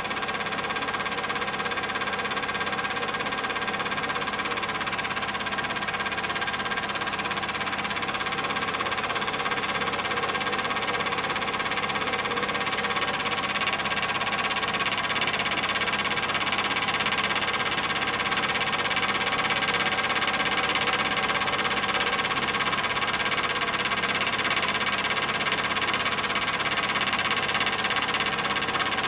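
Super 8 film projector running, a steady, unchanging mechanical whirr.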